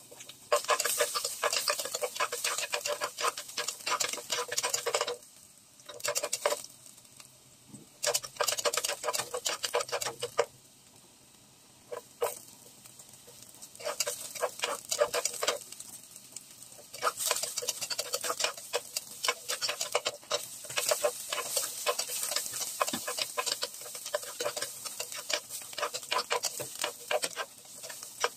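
A spatula stirring and scraping chopped garlic and ginger around a nonstick pot, a rapid clatter of scrapes and taps that comes in runs of a few seconds with short pauses between.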